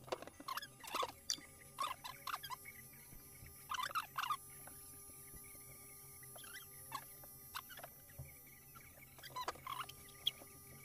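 Electric hair clippers humming steadily, with short crackling bursts each time the blades pass through the hair, about half a dozen times.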